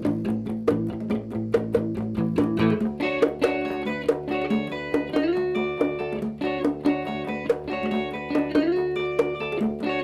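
A band plays an instrumental break: electric guitar lines over bass guitar and hand drums, with a steady beat. About three seconds in, the heavy low notes drop back and the guitar melody comes forward.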